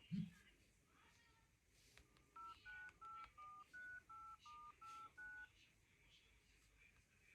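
Phone keypad dialing tones: a quick, even run of about ten faint two-note beeps, each key giving its own pair of tones, as a phone number is keyed in. A brief low thump comes right at the start.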